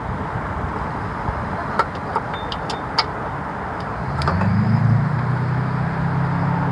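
A few sharp metallic clinks from hand tools, a socket and ratchet being fitted against engine parts. About four seconds in, a low steady motor-vehicle engine hum starts and keeps going.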